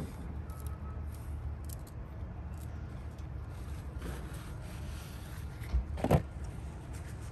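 Paper towel rubbing over a stainless steel chimney pipe, over a steady low rumble. A sharp knock about six seconds in is the loudest sound.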